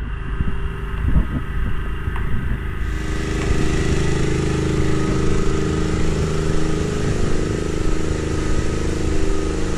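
An engine running steadily, a continuous drone that fills out about three seconds in.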